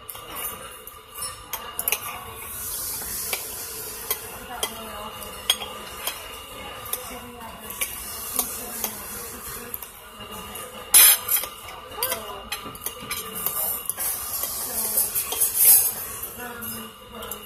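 Knife and fork scraping and clinking against a plate while cutting a pancake, a run of small taps and scrapes with a sharper clink about two-thirds of the way through.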